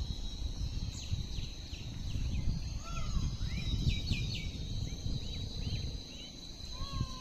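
Several birds chirping, with quick falling chirps and a few longer arched calls, over a steady high-pitched drone of insects. A low rumble of wind on the microphone runs underneath.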